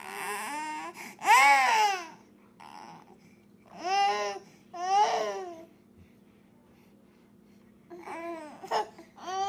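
Baby crying and fussing in short wails. The loudest wail comes about a second in, two shorter cries follow around the middle, then there is a quiet pause before a few short cries again near the end.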